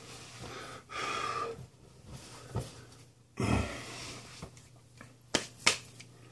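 Breaths and small handling noises, with two sharp clicks a little after five seconds in.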